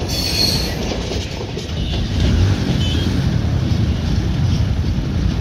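The tail of a freight train, its box wagons and brake van, rolling past on the rails, with a brief high squeal at the very start, then a steady low rumble as the train moves away.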